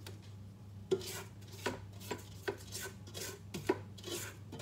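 Wooden spoon stirring a thick butter, sugar and egg mixture in a stainless steel mixer bowl: repeated scraping strokes with light knocks against the bowl, roughly two to three a second, starting about a second in.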